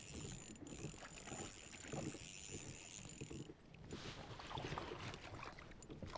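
Small knocks and water lapping around a kayak while a spinning reel is cranked, reeling in a hooked kokanee salmon. A faint high steady whine stops about halfway through.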